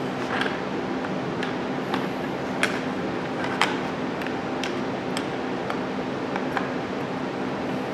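Scattered light clicks and taps of a plastic handguard and its aluminium bracket being handled and tried against a motorcycle handlebar. A steady low hum runs underneath.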